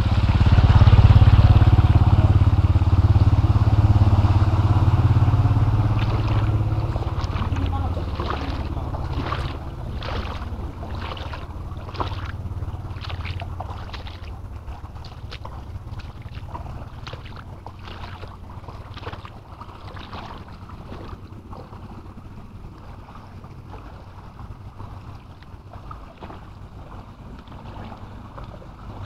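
Motorcycle engine riding past close through floodwater, a loud low rumble that fades over the first several seconds as it moves away. Then a run of short, sharp splashes, one or two a second, over steady background noise.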